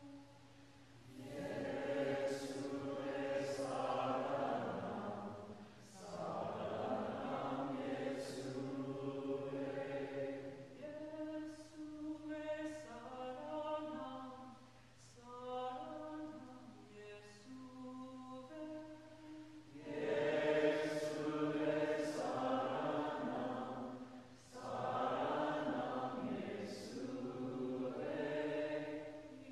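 A small group singing a Hindi hymn together in phrases over a steady low drone from a hand-pumped harmonium. The singing thins and softens about eleven seconds in, and the full group comes back in strongly about twenty seconds in.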